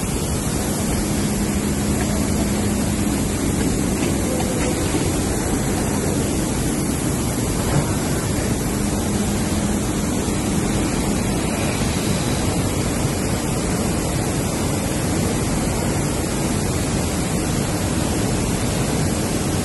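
Steady, even noise of a rice blending and bagging line running, with rice grain pouring through the plant.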